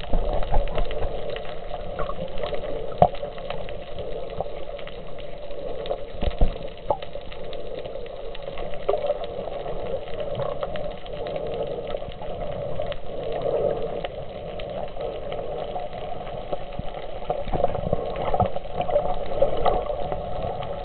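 Underwater water noise picked up by a camera held below the surface: a steady muffled wash and bubbling with scattered clicks and knocks, and one louder thump about six seconds in.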